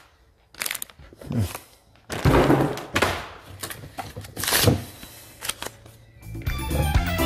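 Cardboard box, paper and plastic sprayer parts rustling and knocking as a pump garden sprayer is unboxed, in several separate bursts. Background music with a drum beat comes in about six seconds in.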